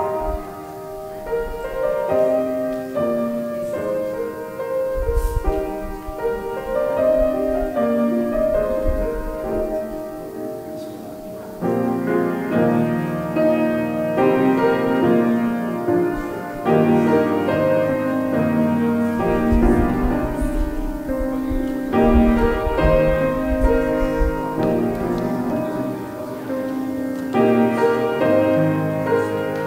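Grand piano playing a piece of melody and chords, growing louder about twelve seconds in.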